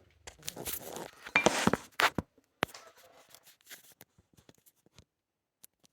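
Rustling and clicking of things being handled on a kitchen worktop as cooking gets under way, busiest in the first two seconds, then a few scattered clicks that die away.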